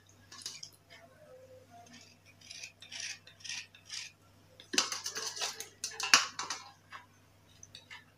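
A knife blade scraping the outer layer off wet slate pencils, in short bursts of strokes, with a louder flurry of scraping and sharp clicks about five to six and a half seconds in.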